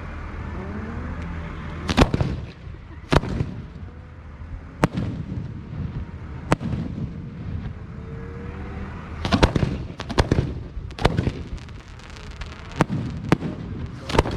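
Fireworks show: aerial fireworks bursting in sharp bangs at irregular intervals, with a quick cluster of several bangs a little past the middle.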